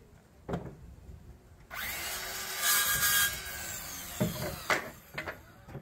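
Circular saw starting up about two seconds in and cutting across a wooden board for about two seconds, loudest in the middle of the cut, then running down. Several sharp knocks of wood follow near the end.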